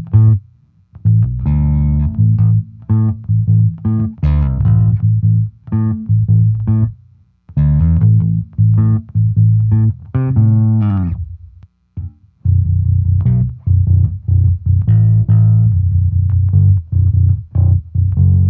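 Five-string electric bass played through a Bias amp-sim model of a Super Bass amp with a custom tone and a compressor: a riff of plucked notes with a couple of short breaks, and a note sliding down in pitch about eleven seconds in.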